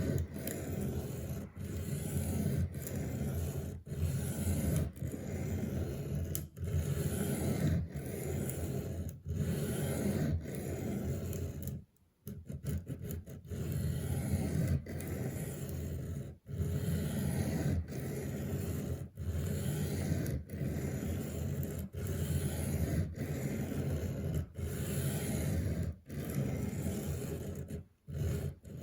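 Steel knife blade scraping back and forth across a wet sharpening stone in steady strokes, about one a second, with a brief pause partway through.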